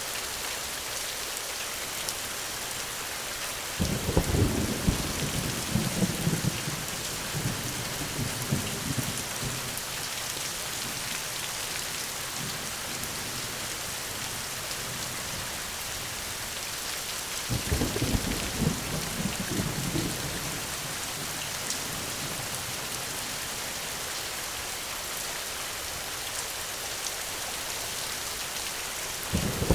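Steady heavy rain with rolling thunder: a low rumble breaks in suddenly about four seconds in and rolls on for several seconds, another comes a little past the middle, and a third starts right at the end.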